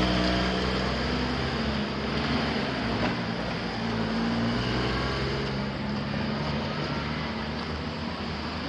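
Road traffic: a motor vehicle's engine running under a steady wash of road noise, fading a little toward the end.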